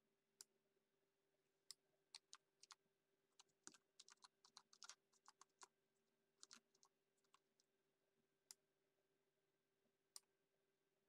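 Faint computer keyboard typing: scattered keystrokes, a quick run of them in the middle, then two lone clicks near the end.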